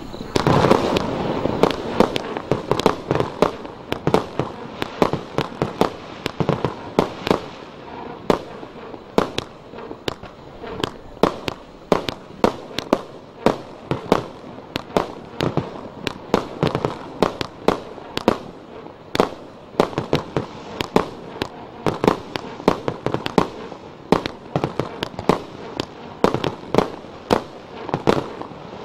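Mars Pyrotechnics 'BIM The Demon' firework barrage firing a long, steady run of shots into the air, about two sharp bangs a second, with a denser rush of noise in the first two seconds.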